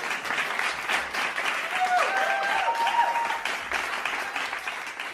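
Children cheering and clapping, a dense patter of claps with a few high voices rising above it about two seconds in, trailing off near the end.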